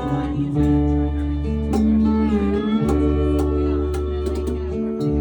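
Live country band playing an instrumental break without vocals: guitars over held bass notes, with a lead line that bends in pitch about halfway through.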